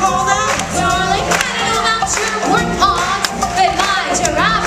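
Singing voices with musical backing and sharp percussion strikes.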